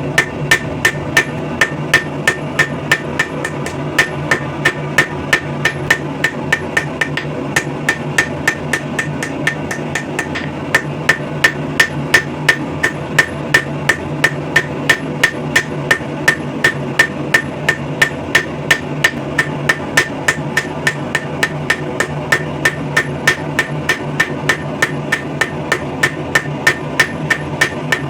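Hammer blows on hot steel over an anvil while forging a wrench into a throwing knife, a steady rhythm of about three strikes a second, each with a short metallic ring, over a constant low hum.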